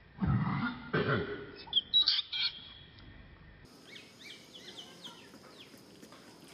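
Long-tailed macaques giving two short, harsh grunts, then a quick run of high-pitched squeaks about two seconds in. After that there is only faint bird chirping in the background.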